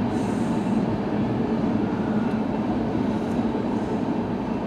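Canadian National freight train cars rolling past, a steady rumble of wheels on the rails.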